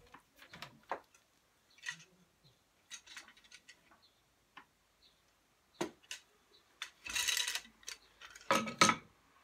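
Wooden clicks and knocks of a rigid heddle loom being worked by hand as the heddles are set and the stick shuttle is handled. There is a brief rustling scrape about seven seconds in and a louder wooden knock near the end.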